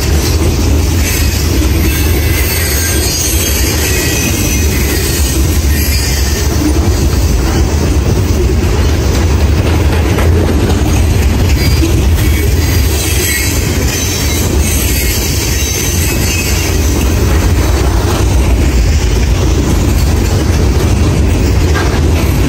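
Freight train's open-top hopper cars rolling past close by: a steady rumble and rattle of steel wheels on the rails, with a few spells of higher-pitched wheel noise.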